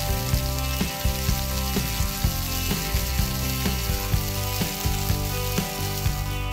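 Frying sizzle, a steady hiss like food in hot oil, laid over background music with a regular beat. The fries and pan are plastic toys, so the sizzle is an added sound effect, not real frying.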